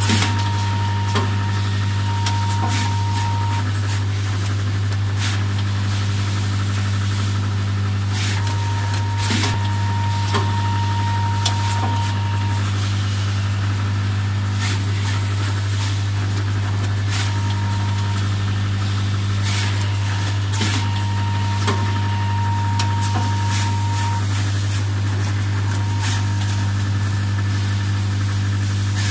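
Automatic PCB component insertion machinery running: a loud steady low hum with irregular sharp clicks and knocks, and a thin high tone that comes and goes for a few seconds at a time.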